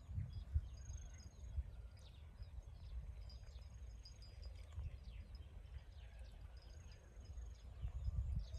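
Faint field ambience: small birds chirping in short, high notes scattered throughout, over an uneven low rumble.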